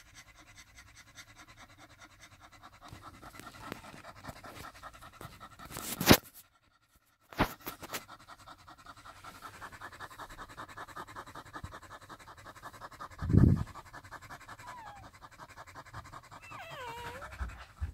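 Springer spaniel bitch in labour panting rapidly and steadily. Two sharp knocks about a second apart come midway, then a dull thump, and newborn puppies squeak faintly near the end.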